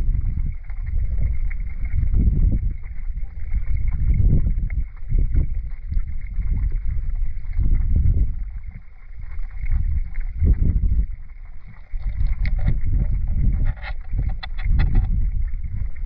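River current heard underwater through a camera housing: a low, surging rumble that swells and eases every second or two. In the last few seconds a scatter of small clicks is added.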